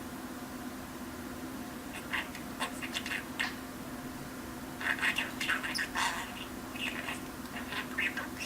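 Pet budgerigar chattering in quick runs of short, scratchy warbled notes, starting about two seconds in and busiest in the middle, over a steady low hum.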